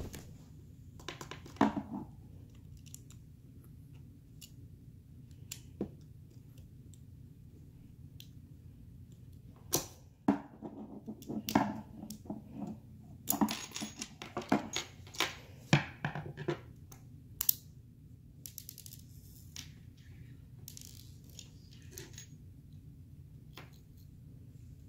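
Plastic disposable lighter being pulled apart by hand: scattered small clicks, snaps and scrapes of plastic and metal parts. The clicks come thickest in a busy stretch from about ten to seventeen seconds in.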